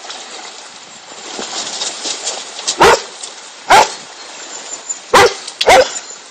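A dog barking four times in the second half: short, loud barks, the first two about a second apart and the last two close together.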